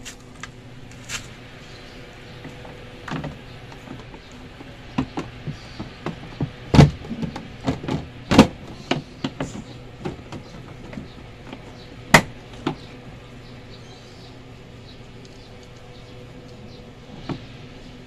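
Hard plastic cover panel of a washing machine being fitted back into place by hand, giving a run of knocks and clacks through the middle, with three louder bangs.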